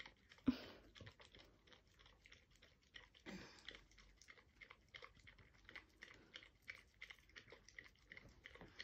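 Dog licking and lapping a cold drink from a paper cup held to its mouth: quick wet tongue clicks, about three to four a second, with a louder scuff of muzzle against the cup shortly after the start and again about three seconds in.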